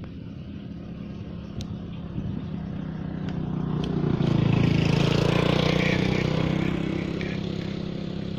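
A motor vehicle's engine running, growing louder to a peak about halfway through as it passes close by, then easing off.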